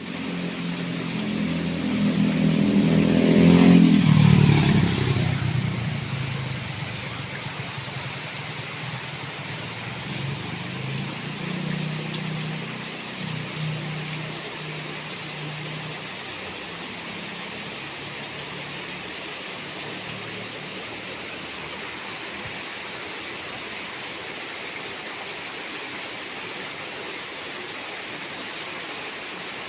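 Steady rain hiss, with a motor vehicle passing close, its engine swelling to the loudest point about four seconds in and fading, and a second, fainter vehicle going by around twelve seconds in.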